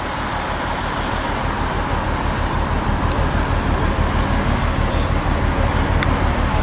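Low, steady engine hum and rumble of a ship, with a quick regular throb under a hiss.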